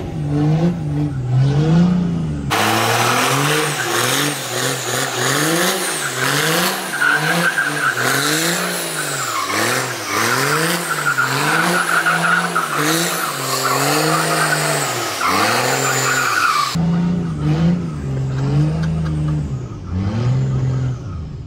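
Diesel Ram pickup doing donuts: the engine revs up and down over and over, about once a second, with tyres squealing on the concrete. It is heard from inside the cab at the start and near the end, and from outside in between.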